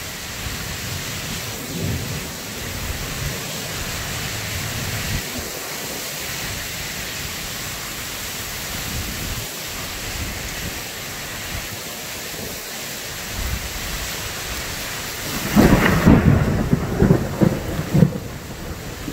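Steady heavy rain with low thunder rumbling under it; about fifteen seconds in, a loud, close clap of thunder breaks out and rumbles unevenly on.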